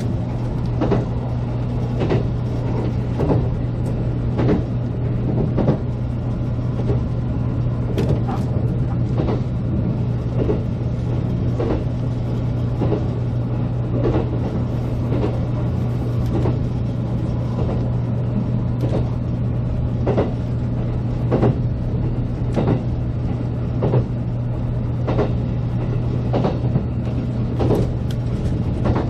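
JR Kyushu 783 series limited-express electric train running at speed, its wheels clicking over rail joints roughly once a second over a steady low hum.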